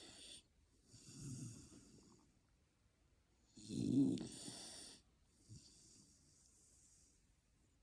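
Slow, regular snoring: one loud snore with a low rumble and a breathy hiss about four seconds in, between quieter breaths in the first two seconds and in the last few seconds.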